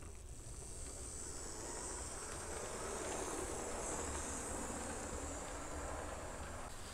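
Model train rolling past: the motor of a 1978 Tyco E7 locomotive's Power Torque drive whirring and the freight cars' wheels running on the track. A steady hiss-and-rumble that grows a little louder toward the middle.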